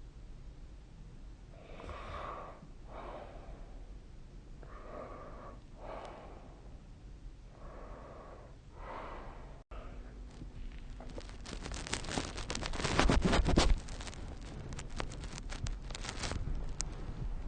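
Soft, raspy sleep breathing between snores, the breaths coming in pairs a few seconds apart. About ten seconds in the sound drops out briefly, then a run of crackling, rustling noise builds, loudest for a couple of seconds a little past twelve seconds in, and fades back down.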